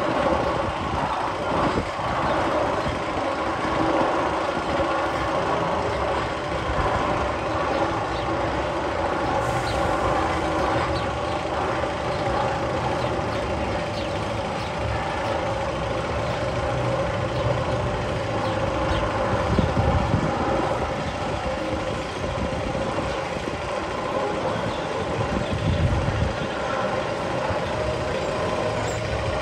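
One of the Magnum XL-200 roller coaster's tunnel sound effects playing: a loud, continuous mechanical rumble with a steady hum, like heavy machinery or a vehicle, swelling briefly a couple of times in the second half.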